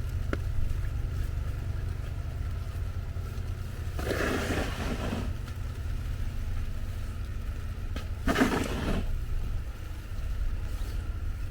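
Street noise in a snowstorm: a steady low rumble, with two brief swishes of cars passing on the snowy road, about four and about eight seconds in.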